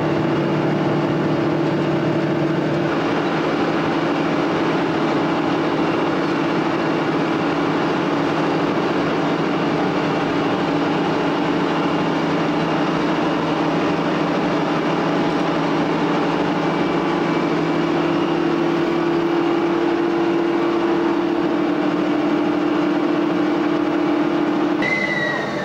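Metre-gauge diesel locomotive's engine running steadily while hauling, heard from the cab, with a constant humming drone. The drone drops away abruptly near the end.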